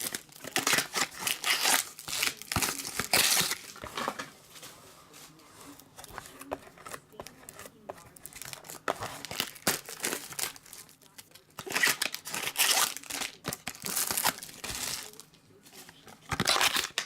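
Plastic shrink-wrap being crinkled and torn off small trading-card boxes by hand, in irregular bursts with short pauses between.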